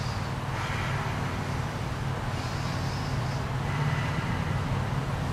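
Steady low background hum of room noise, with two faint soft hissing sounds, likely breaths, about a second in and near the middle.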